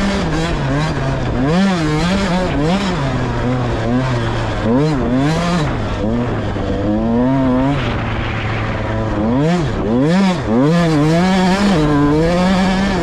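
Off-road vehicle's engine being ridden over sand, revving up and dropping back over and over as the throttle is worked.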